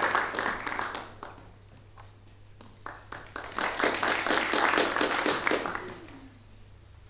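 Audience applause: a burst of clapping that fades, a few scattered claps, then a second, louder round that dies away about six seconds in. A steady low hum runs underneath.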